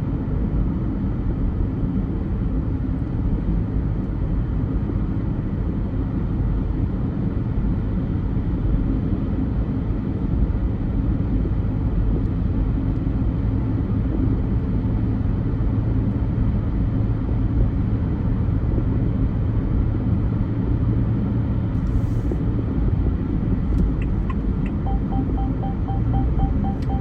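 A car driving in traffic: a steady low rumble of engine and road noise. Near the end a light, regular ticking begins, a few ticks a second.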